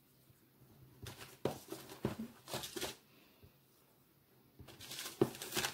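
Paper and plastic wrapping rustling and crinkling as hands move and lift handmade craft gifts. It comes in a run of crinkles about a second in, stops for a moment, and starts again near the end.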